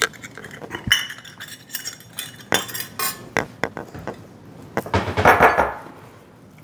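Stainless-steel measuring cups and bowls clinking and knocking on a kitchen counter as they are handled, a string of sharp separate clicks. About five seconds in comes a longer, louder rough scrape or rustle.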